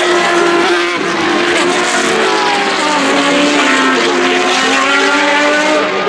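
Several open-wheel racing cars (ex-Formula 1 and similar single-seaters) passing at speed, their high-revving engines overlapping. Each engine note rises and falls in pitch.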